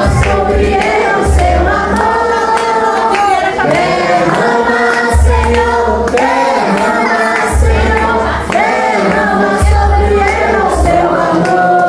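A group of people singing together along with music, women's and children's voices among them.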